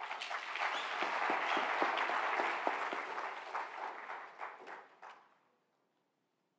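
Audience applauding, a dense patter of many hands clapping that thins out and stops about five seconds in.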